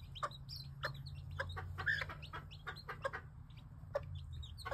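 Mother hen clucking and a chick peeping in many short, quick calls, over a steady low hum.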